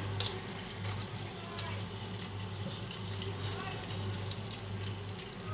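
Cooking oil heating in a nonstick frying pan on a gas burner, with faint scattered crackles and a light sizzle as it gets hot, over a steady low hum.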